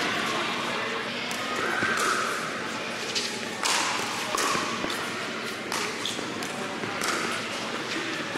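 Pickleball rally: paddles striking a hard plastic pickleball in a string of sharp pops, several in a row about a second apart, echoing in a large indoor hall.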